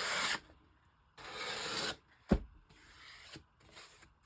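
Sanding block rubbed along the edges of a paper-covered writing board to take off excess paper: a few separate rasping strokes, the first two loudest and the later ones fainter, with one sharp knock a little over two seconds in.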